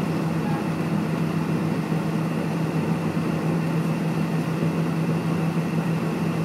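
Cessna Citation X cabin noise while taxiing: its rear-mounted Rolls-Royce AE3007 turbofans running at low taxi power, a steady drone with a strong low hum.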